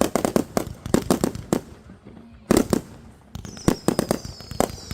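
Consumer fireworks going off: a quick series of sharp bangs and crackles, a short lull, then a loud bang about halfway through. Near the end several high whistles fall slowly in pitch among more bangs.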